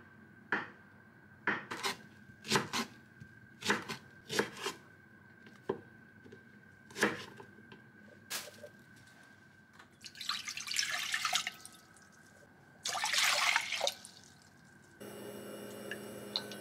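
Kitchen work: irregular sharp knocks and clinks of dishes and utensils over the first half, then water running from a tap in two short bursts about ten and thirteen seconds in. Near the end it gives way to a steady hum.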